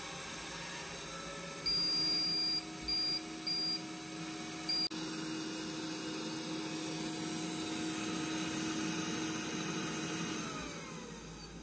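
Hutt DDC55 window-cleaning robot's suction fan running with a steady whir and hum. About two seconds in it gives one long high beep followed by three short ones. Near the end the hum falls in pitch and fades as the fan winds down.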